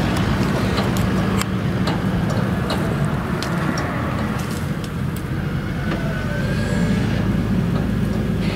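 Claas Jaguar 970 self-propelled forage harvester working in a maize field, its engine and chopping drum running as a steady, heavy drone, with scattered sharp ticks over it.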